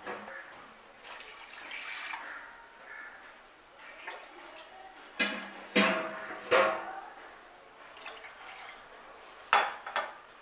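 Water being added to sugar in a non-stick kadai, splashing and dripping, with a few sharp knocks in the middle and near the end.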